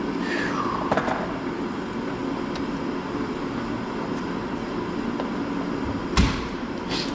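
Steady background hum with a sharp click about a second in and two sharp knocks near the end, about a second apart.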